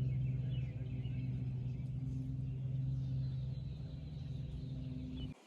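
A steady low mechanical hum, even in pitch, that cuts off abruptly near the end.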